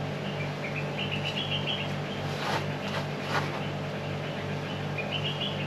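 A steady low machine hum from a running motor or engine, with a bird twice giving a quick rising series of high chirps. Two light clicks come about halfway through as the pot and its tile shards are handled.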